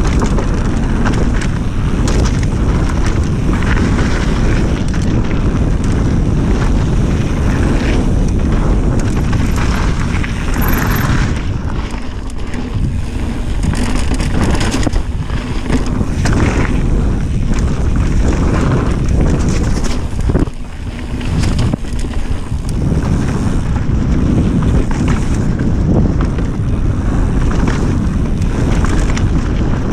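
Wind buffeting the microphone and mountain bike tyres rolling fast over a packed-dirt trail, with frequent rattles and knocks from the bike over bumps. The noise drops briefly about twenty seconds in.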